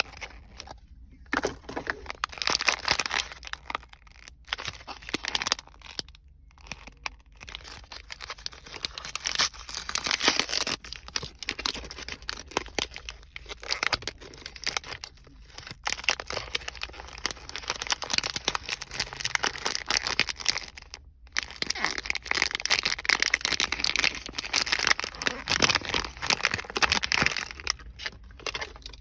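Crackle foam being squeezed and worked by hand, giving a dense run of small crackles and pops in stretches several seconds long, broken by a few short pauses.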